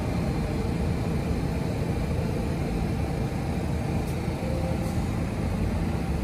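Steady low rumble of an R62A subway train on the 1 line, with a couple of faint clicks about four to five seconds in.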